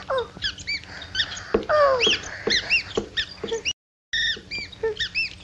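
Cartoon mice squeaking and chattering in quick, high-pitched chirps, with a falling whine or two among them. The squeaks break off briefly about four seconds in, then start again.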